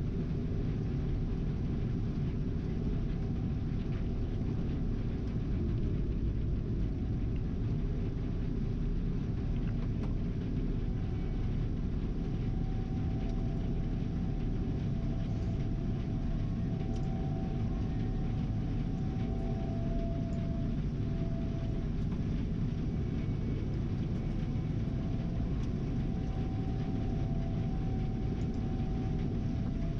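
Gleaner R72 combine harvester running steadily while harvesting soybeans, heard from inside the cab: a continuous low rumble with faint whining tones that come and go.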